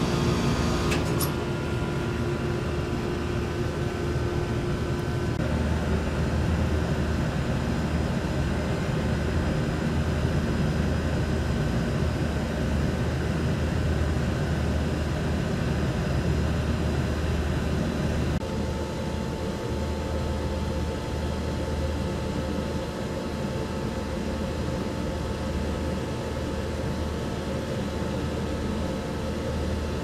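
Outdoor unit of a three-phase air conditioner running: a steady low hum with faint steady tones over it, which shift about five seconds in and again around eighteen seconds in. A light click about a second in.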